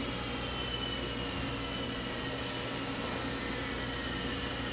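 Steady background hum and hiss of a workshop room, with faint high whining tones that drift slowly in pitch. No distinct clicks or knocks from the vise parts stand out.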